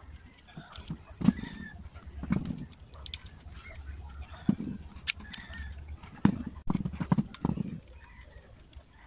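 Irregular clicks, taps and light knocks as a Makita electric planer's housing is handled and a part is fitted into its side.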